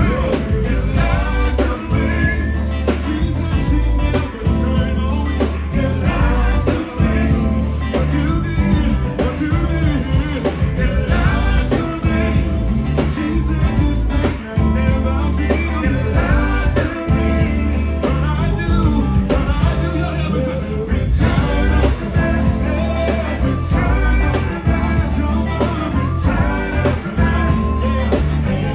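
Live band music: electric guitars, bass, drums and keyboards behind male vocalists singing into handheld microphones, loud and continuous, recorded from within the audience in a club.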